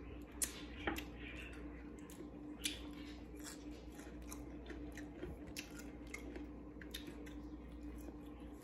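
Faint chewing of fried chicken, with scattered soft wet clicks from the mouth. A low steady hum sits underneath.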